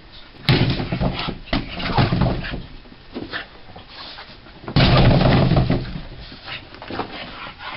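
A Boston terrier scrambling across a carpeted floor after a laser dot: a run of sudden thumps and scuffles, the loudest about five seconds in.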